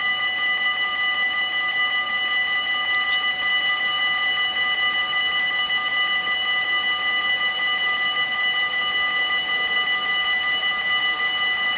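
Dutch level crossing warning bell ringing continuously while the barriers are down, a rapid, unbroken ringing of several high tones.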